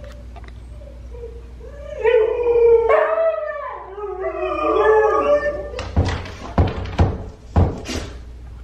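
Huskies howling and whining in long, wavering cries that rise and fall in pitch, excited at their owner's return. Then come several sharp knocks as they jump and paw at the glass-paned door.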